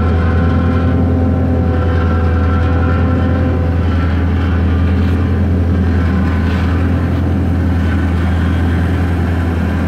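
Jungheinrich forklift truck running, a steady low hum with fainter higher tones over it that fade out after a few seconds.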